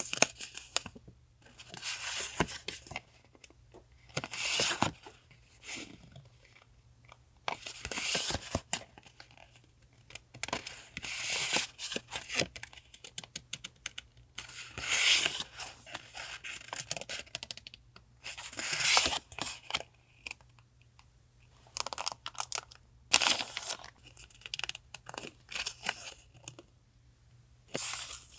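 Paper being torn and handled in short strokes, one every couple of seconds, with small taps and clicks between.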